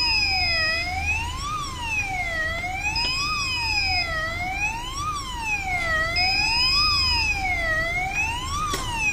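Fire roller shutter's controller alarm wailing like a siren, rising and falling in pitch about every second and a half to two seconds. A steady beep sounds about every three seconds, over a low hum from the shutter motor as the shutter steps all the way down.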